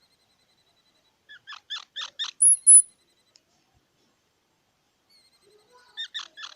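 Squirrel calling: a quick run of about five short chirps, then two very high, loud squeaks, and another short run of chirps near the end.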